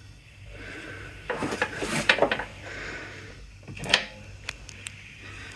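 Metal hand tools clinking and clattering as they are picked up and handled, in two bursts of knocks and rattles, the sharpest about four seconds in.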